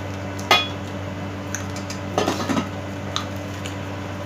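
Dishes clinking on a table: one sharp, ringing clink about half a second in, a few light ticks, and a short jumble of clatter about two seconds in, over a steady low hum.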